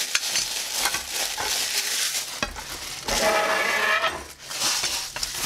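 Tissue-paper wrapping rustling and crinkling as it is pulled out of nested aluminium camp cookware, with light knocks of the metal pots and a brief pitched squeak about three seconds in.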